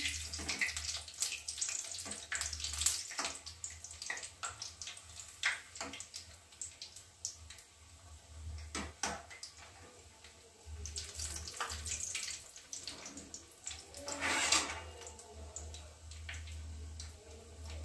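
Hot oil sizzling and crackling in a steel kadhai as breadcrumb-coated potato snacks deep-fry and are turned, with short sharp pops and the slotted spoon clicking against the pan now and then. A louder swell of sizzle comes about fourteen seconds in.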